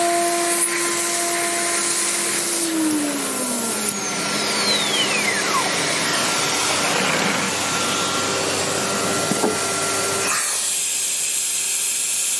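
CNC router running over the steady rush of its vacuum hold-down table and dust extraction; the spindle's whine drops in pitch as it spins down, a falling whistle sliding from high to low about four seconds in. About ten seconds in, the deeper part of the rushing noise cuts off, leaving a hiss.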